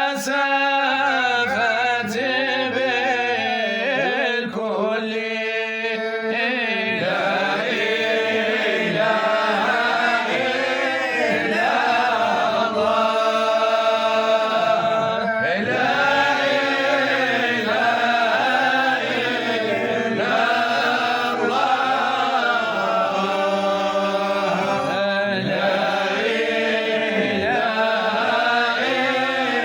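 Sufi devotional chanting of a qasida by a male voice, a slow, ornamented melodic line carried without a break, over a steady low held drone.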